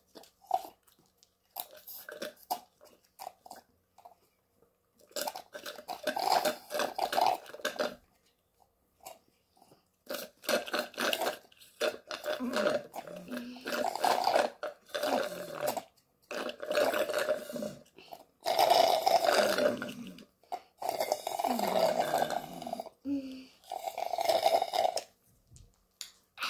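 Two people slurping thick smoothies through straws, sucking up the last of the drink. The slurps come in long, noisy pulls of a few seconds each, with short pauses between them.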